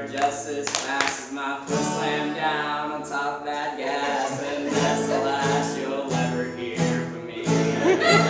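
A voice singing over guitar chords.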